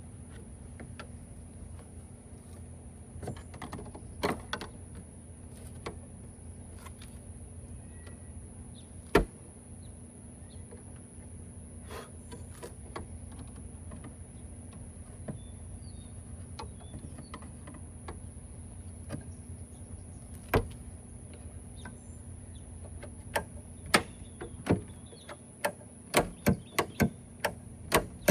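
Scattered sharp metallic clicks and knocks of hand tools and tailgate handle parts being worked, two louder knocks, then a quick run of sharp clicks about two a second near the end, over a steady low hum.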